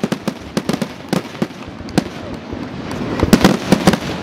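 Aerial fireworks bursting in quick, irregular succession, many sharp bangs and pops, growing louder and denser about three seconds in.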